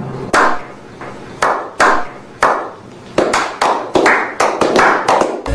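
A small group of people giving a slow clap: single hand claps that start about a second apart and quicken toward the end.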